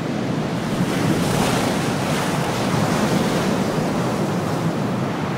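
Ocean surf and wind: a steady rushing noise.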